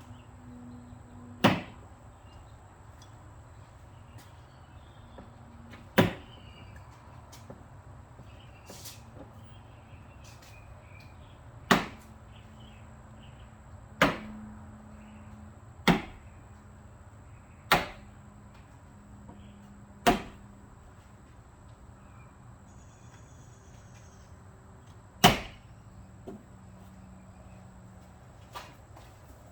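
Sharp knocks, eight loud ones a few seconds apart with a few fainter ones near the end, as the plastic clips of a Toyota Sienna liftgate trim panel are pressed and tapped home into their square holes.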